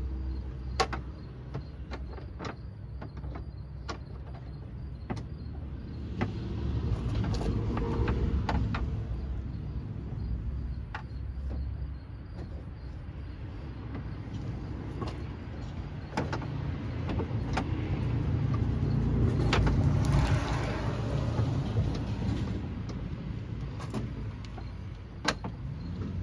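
Hand-tool work inside a 2001 Chevrolet Blazer's door: irregular clicks and knocks of a 10 mm socket and its bolt against the metal door as they are fed toward the door handle's bolt hole, with two longer stretches of louder handling noise, the louder one about twenty seconds in.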